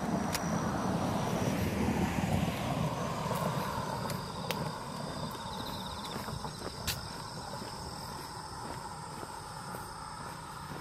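A passing engine, heard at a distance: a low rumble that swells to its loudest about two seconds in and then slowly fades. A few sharp clicks stand out over it, along with a steady high-pitched buzz.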